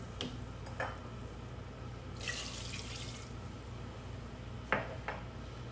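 Water just added to hot oil and fried lamb in an aluminium pressure cooker, bubbling and dripping over a steady low hum. A short hiss comes about two seconds in, and a few light knocks sound against the pot, the loudest near the end.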